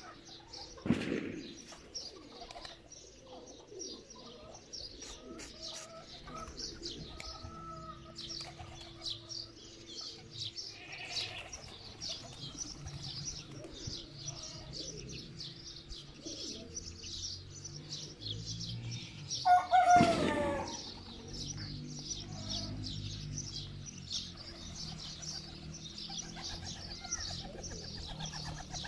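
A flock of domestic pigeons cooing and flapping their wings on the ground, with dense high chirping throughout. A short loud knock comes about a second in, and a loud pitched call about twenty seconds in.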